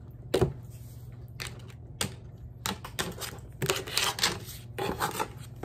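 A deck of tarot cards being shuffled and handled, giving irregular sharp clicks and taps of cards against each other and the tabletop.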